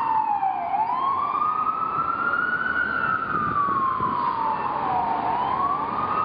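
A siren wailing in a slow rise and fall: its pitch falls to a low point just under a second in, climbs for about two seconds, then falls for about two and a half seconds to another low point, and starts climbing again near the end.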